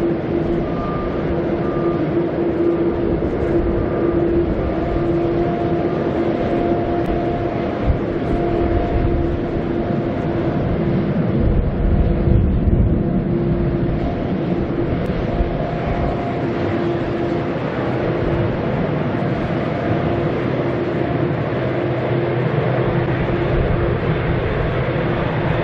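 Boeing 787-9's GEnx jet engines at taxi idle: a steady hum with a faint whine, swelling a little about halfway through.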